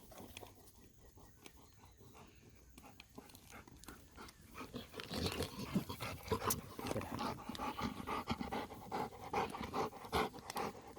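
Dog panting close by: faint at first, then quick, rhythmic breaths, louder from about five seconds in.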